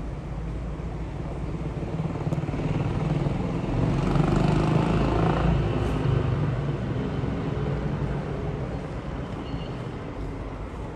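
Jet noise from a British Airways Airbus A380's four Rolls-Royce Trent 900 turbofans as the airliner passes overhead. It is a broad rumble that swells to its loudest about four to six seconds in, then slowly fades.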